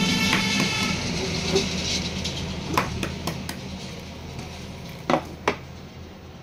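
A hard-boiled egg's shell being cracked and peeled by hand: a few sharp clicks and crackles, the two loudest about five seconds in. A steady background hum fades out within the first second.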